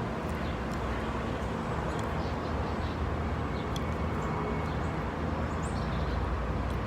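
Steady outdoor background rumble of road traffic, with a few faint, short high chirps.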